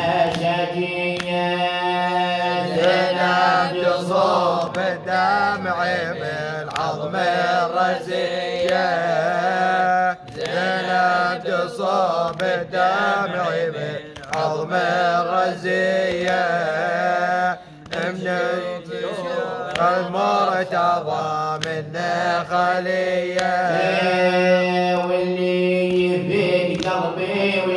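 Arabic mourning elegy chanted: a wavering, ornamented vocal melody over a steady low drone, with brief breaks.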